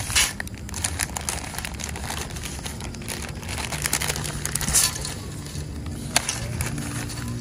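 Dry spaghetti strands clicking and rattling against each other and the pan as a bundle is tipped from its plastic packet into a pan of water, with the packet crinkling.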